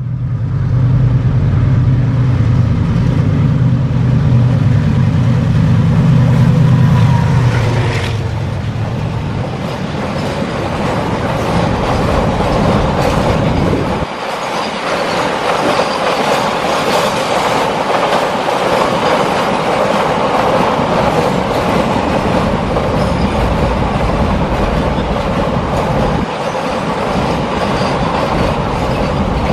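WDG-4G diesel-electric locomotive hauling a container freight train. Its engine drone builds and then drops in pitch as it passes, about eight seconds in. After that the container wagons rumble and clatter steadily past on the rails.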